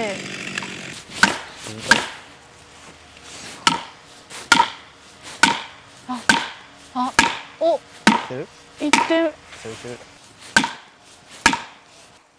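Felling wedges being driven into the cut of a standing tree with a hammer: about a dozen sharp, ringing strikes, roughly one a second. A chainsaw dies away at the very start.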